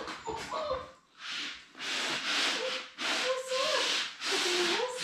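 Paper towels being scrubbed across the floor underfoot, in long rubbing strokes about a second each with short breaks, while Labrador puppies give a few faint wavering whines.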